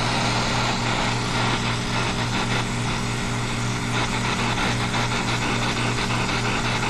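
Oxy-acetylene brazing torch flame hissing steadily as it heats a copper joint to sweat off a thermostatic expansion valve, over a steady low motor hum.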